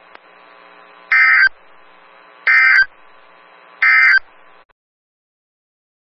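NOAA Weather Radio SAME/EAS end-of-message data bursts: three short identical bursts of warbling digital tone about 1.3 s apart, closing the weekly test broadcast. A faint hiss lies underneath and cuts off suddenly a little after the third burst.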